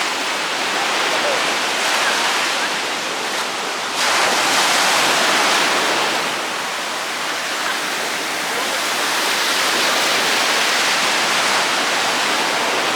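Surf washing onto a beach: a steady, loud rush of breaking waves that gets louder about four seconds in.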